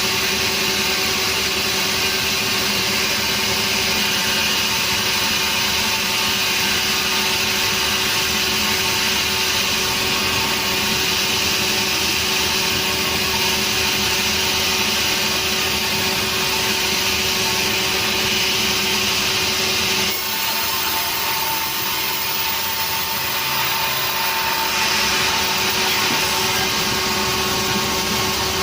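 Sawmill saw running steadily and cutting a nering log, a continuous machine noise with a constant hum. About twenty seconds in, the sound dips slightly and its hiss changes.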